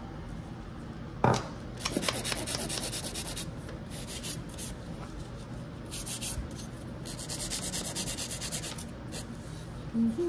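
Hand nail file scraping back and forth across long acrylic nail tips in runs of quick, even strokes, with short pauses between runs. A single sharp knock about a second in.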